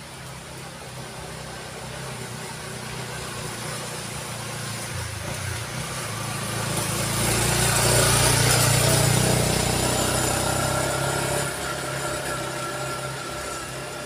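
Motorcycle engine pulling up a steep uphill bend, growing louder as it approaches, loudest about eight seconds in, then fading as it climbs away.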